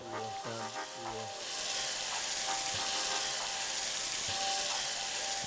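Pearl onions and baby turnips frying in hot olive oil in a stainless steel saucepan, sizzling. The sizzle swells about a second and a half in as they land in the pan, then holds steady.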